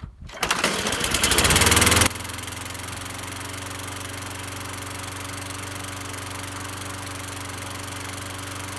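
Kohler engine on an Ariens walk-behind lawnmower starting from cold and speeding up, louder for the first two seconds. It then runs steadily, a sign that the cold start now works with the choke linkage reconnected.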